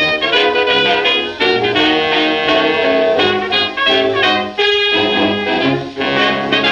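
A 1928 hot jazz dance band playing from a 78 rpm shellac record: cornets, trombone and reeds playing together in full ensemble over a rhythm section, in the record's closing bars.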